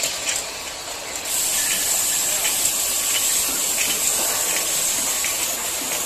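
Automatic bottle-capping line running: a steady hiss of machine noise, a little louder from about a second in, with faint light clicks now and then.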